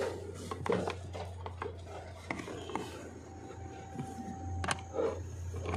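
Hands working a plastic wiring connector at the blower motor resistor block under the dashboard: irregular clicks, knocks and rubbing of plastic parts, over a steady low hum.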